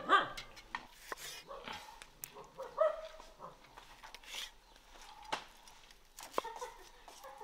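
A dog barking, the loudest bark right at the start, then fainter short yelps about three seconds in.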